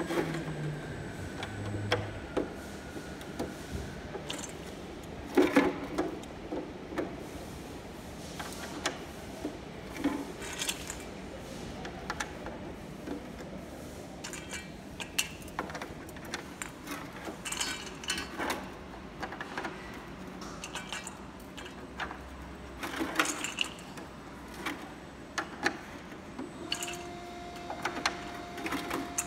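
Irregular plastic clicks, taps and rattles as ABS plastic baluster mold sections are pressed together and fastened with small plastic clips, and as clips are picked from a pan full of them. A steady hum comes in near the end.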